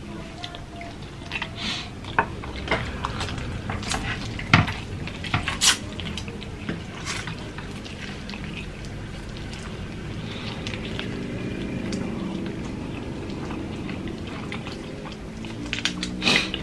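Close-up eating sounds: instant noodles slurped and chewed, a fork clicking against the pan, and a roast chicken torn apart by hand. Sharp clicks come in the first half, and a steadier run of wet slurping sits in the middle.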